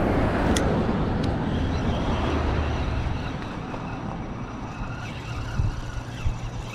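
A road vehicle going by; its tyre and engine noise fades away over the first few seconds.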